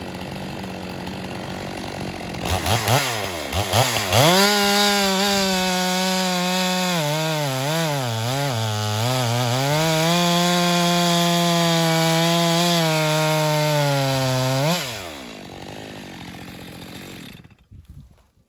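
Two-stroke chainsaw blipped a few times, then held at full throttle through a cut in a log, its pitch sagging and recovering under load. Near the end the throttle is released and the engine falls back to idle before the sound cuts off.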